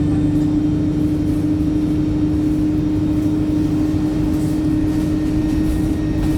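Wright StreetLite single-decker bus heard from inside while driving: a steady engine drone over low road rumble, with a constant whining tone. The uploader calls the engine tired.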